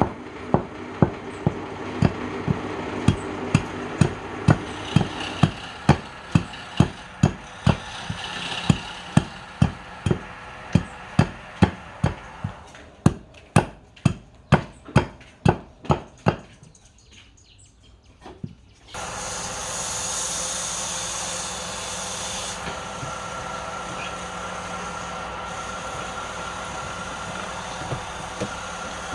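Hammering: sharp, evenly spaced knocks at about two a second that stop after about sixteen seconds. After a short pause, a steady machine noise with a low hum starts and runs on.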